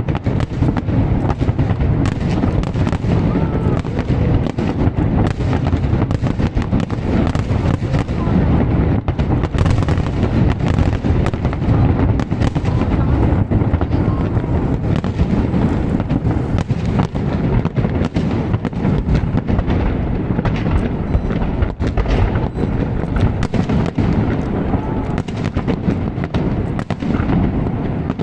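Fireworks display: a continuous barrage of many overlapping bangs and crackles, without a break.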